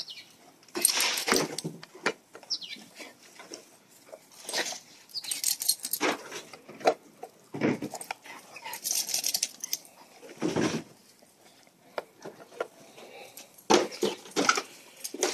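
English bull terrier snuffling and breathing noisily while nosing and mouthing a plastic toy in the grass, in irregular short bursts with quiet gaps between.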